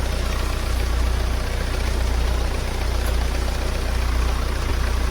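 Kia Sportage engine idling steadily with a low, even hum.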